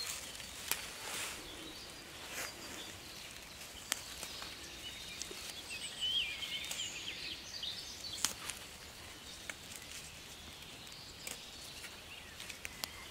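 Quiet woodland ambience: dry fallen leaves rustling, with scattered small clicks and snaps as leaves are picked by hand. A bird sings briefly about six seconds in.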